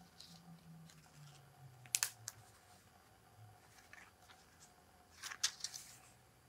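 Hands handling a cardstock greeting card and ribbon: soft paper rustling with sharp taps and clicks about two seconds in and again after about five seconds, over a faint steady hum.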